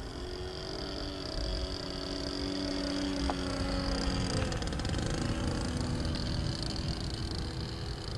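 Motor of a radio-controlled model Cessna 152 airplane droning in flight; its pitch drifts and drops about halfway through as the plane moves and the throttle changes.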